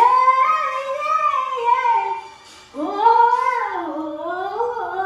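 A woman singing high, sustained phrases into a microphone, the pitch sliding up and down in runs. She breaks off for a short breath about two and a half seconds in, then sings on.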